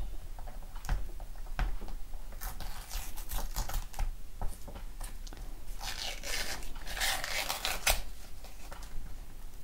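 Paper being peeled and torn off the back of a small picture frame, with crinkling and crackles. The tearing comes in two denser runs, about two and a half to four seconds in and again about six to eight seconds in.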